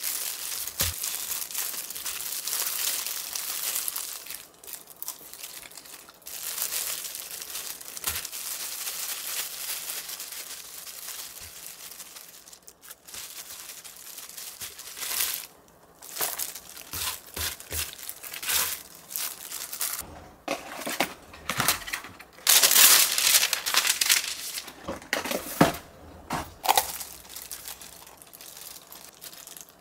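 Disposable plastic gloves crinkling as imitation crab sticks are torn into shreds by hand, a steady rustle for the first dozen seconds. After a short lull, louder, irregular crinkles and rustles follow as baking paper and a jar's plastic seal are handled, loudest a little past the middle.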